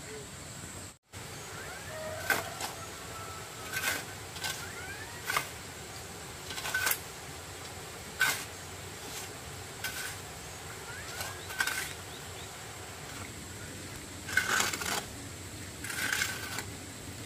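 Sharp knocks at uneven intervals of one to two seconds, each followed by a brief ringing tone.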